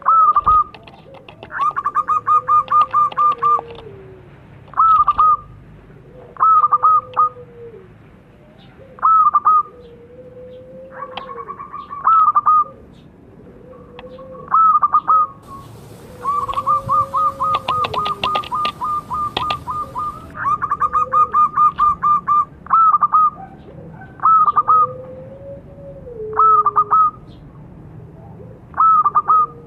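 Zebra dove (perkutut) with a high, small voice cooing: short notes given singly or in pairs, and several fast runs of many quick notes, the longest about halfway through. A fainter, drawn-out lower coo sits between the phrases.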